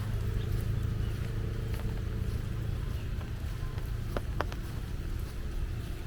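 Walking ambience: footsteps on a path over a steady low rumble of distant city traffic. A faint hum runs for the first couple of seconds, and two sharp clicks come about four seconds in.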